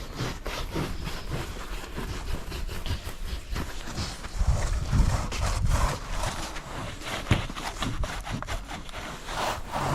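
Snow crunching in quick, irregular strokes, with a heavier low rumble about halfway through.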